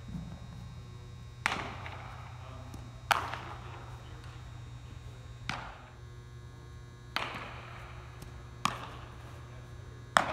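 Baseballs smacking into leather gloves during a game of catch: six sharp pops, about one every one and a half seconds, some louder than others, each echoing off the walls of a large indoor fieldhouse. A steady low hum runs underneath.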